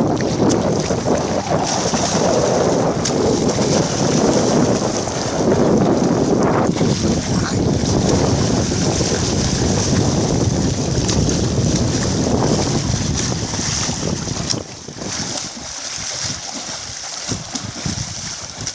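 Wind buffeting the microphone over splashing, sloshing water as a person thrashes about on an inflatable air mattress in the sea; the rumble eases somewhat near the end.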